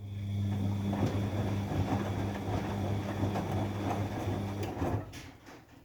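Bosch WFD 1260 washing machine turning its drum during the rinse cycle: the motor hums loudly with a steady low tone under an irregular churning, then stops about five seconds in. The uploader puts the noise down to a bad motor.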